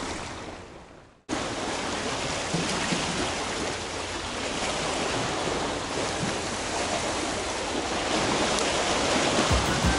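Sea swell washing and splashing against shoreline rocks: a steady rush of surf that cuts in suddenly about a second in, after a brief fade to silence. Music with a regular low beat comes in near the end.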